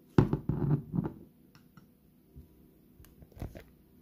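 A metal spoon scraping and clinking against the inside of a glass jar of chocolate spread, a loud cluster of scrapes in the first second. A few light clicks and knocks follow.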